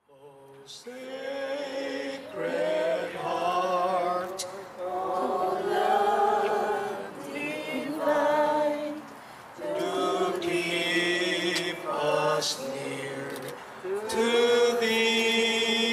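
Unaccompanied voices singing a liturgical chant or hymn, in held phrases broken by short pauses.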